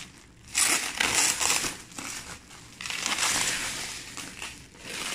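Clear plastic stretch wrap being pulled and torn off a cardboard box, rustling loudly in irregular bursts. About three seconds in it becomes a longer, continuous rustle.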